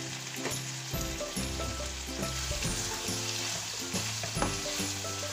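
Chicken, capsicum and onion sizzling in a frying pan as they are stirred with a spatula, with scrapes and light knocks against the pan. Background music plays underneath.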